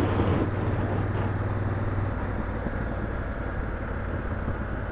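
Motorcycle engine running at road speed with wind and road noise, heard from the rider's own bike. A steady low hum from the engine drops away about two seconds in.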